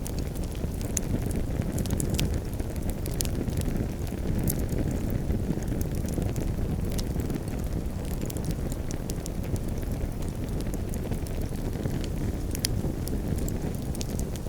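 Campfire crackling: scattered sharp pops and snaps over a steady low rushing noise.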